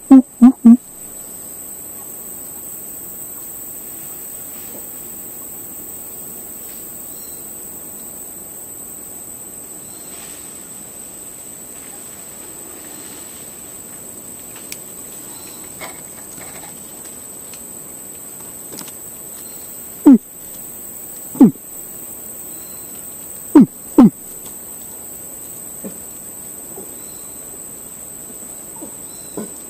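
Steady high-pitched insect chorus, with four short, loud calls, each dropping in pitch, coming in two pairs about two-thirds of the way through.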